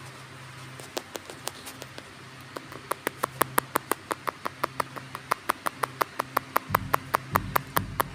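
A run of sharp, short clicks or taps, a few at first and then coming quickly, about four or five a second, from about three seconds in, over a steady low hum.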